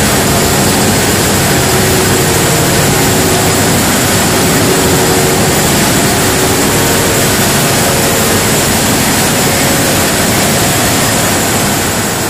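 Large Cummins diesel generator set running with a loud, steady drone, heard close up inside the generator hall. The level begins to drop near the end.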